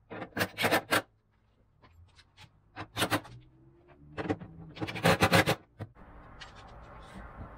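Cordless 12-volt driver run in several short bursts, driving in the bolts of the plastic CVT clutch cover. The longest and loudest burst comes about five seconds in.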